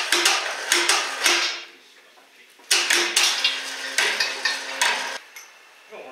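Metal striking metal in quick repeated knocks, about four a second, each with a short ringing note, in two runs with a pause of about a second between.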